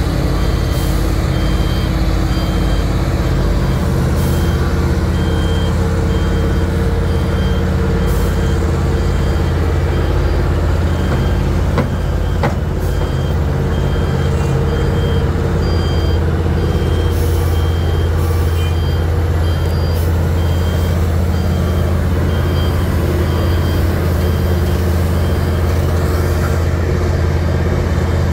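Wirtgen W1900 cold milling machine's diesel engine running steadily under load, with a backup alarm beeping over it in short, evenly spaced beeps.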